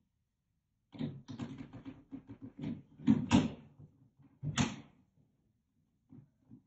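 A run of irregular knocks and clatter, loudest about three seconds in and again around four and a half seconds, then a few faint knocks near the end.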